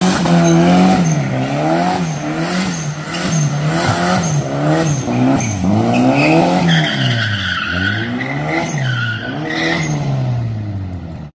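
Mitsubishi Starion's G54B four-cylinder engine being revved up and down over and over, roughly every 0.7 s, while the rear tyres spin in a burnout. High tyre squeal joins in about halfway through, and everything cuts off just before the end.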